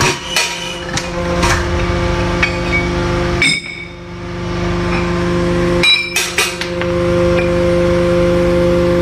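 A forging press hums steadily while glowing-hot metal discs are pressed and handled on its die, with repeated metal clinks and knocks. The loudest clanks come about three and a half seconds in and again around six seconds.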